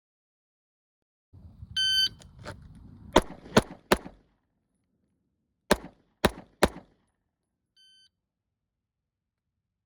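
A shot timer's start beep, then six pistol shots in two strings of three, the shots in each string about 0.4 s apart and the strings about two seconds apart. A fainter timer beep follows about a second after the last shot.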